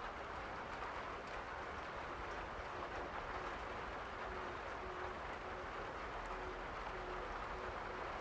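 Steady rain falling, an even hiss. From about two seconds in, a faint short tone repeats roughly twice a second under it.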